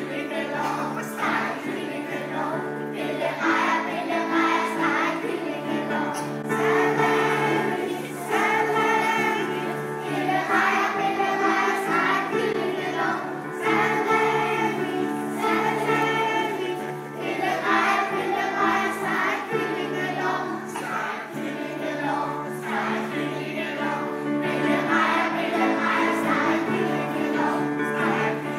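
A group of children and women singing a song together over steady musical accompaniment.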